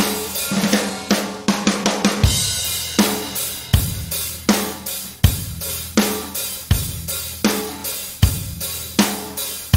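A recorded drum kit loop (kick, snare, hi-hat and cymbals) plays a steady beat with a busy fill about a second in. It runs through REAPER's ReaComp compressor in feedback mode, which is switched to bypass for part of the second half as a before-and-after comparison.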